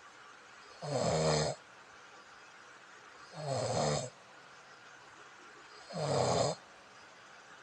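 A person snoring: three snores about two and a half seconds apart, each under a second long.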